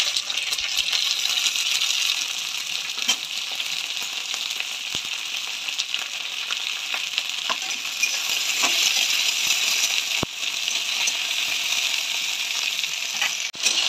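Chopped okra and onions sizzling in hot oil in a metal wok, with scattered metal clinks as the pieces are dropped in and then stirred with a steel spatula.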